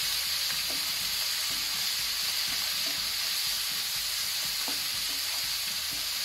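Chopped onions, tomatoes and spices sizzling steadily in ghee in a non-stick frying pan over a high flame, with a wooden spatula stirring and scraping through them.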